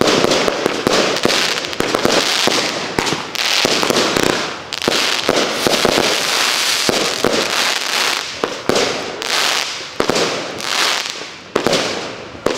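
Consumer aerial fireworks firing shot after shot in quick succession: launch thumps and bursts overlapping with dense crackling, with a short lull near the end.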